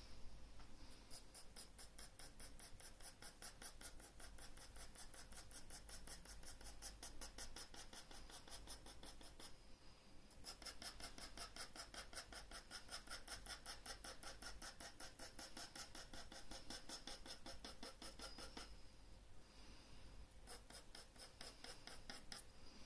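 Graphite pencil hatching on paper, faint, in rapid, even back-and-forth strokes of several a second, with a brief break about ten seconds in.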